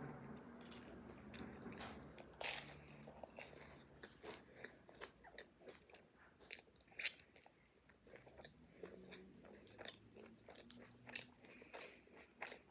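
A person chewing and biting food close to the microphone: soft, irregular crunches and wet mouth clicks, a few louder bites among them.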